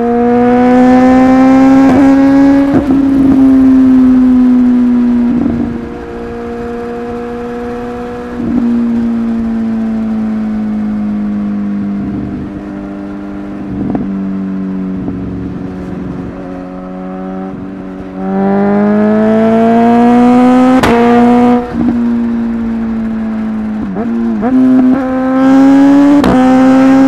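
Suzuki GSX-S1000 inline-four motorcycle engine pulling hard through the gears three times, near the start, about two-thirds through and near the end. Each quickshifter upshift breaks the rising note with a brief cut and a sharp pop from the exhaust. Between the pulls it runs at steadier, lower revs.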